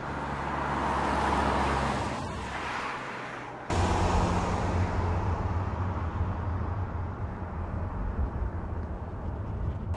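A 2015 Volkswagen Touran driving: tyre and engine noise swells as the car passes and fades away over the first few seconds. Then, after an abrupt cut, a steadier and louder low engine hum with road noise.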